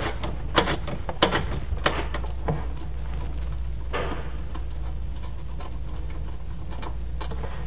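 Light metal clicks and clinks of a bolt, washers and nut being handled against a metal mounting bracket. There are a few sharp ones in the first two and a half seconds, one scrape about four seconds in, and fainter ticks after that, over a steady low hum.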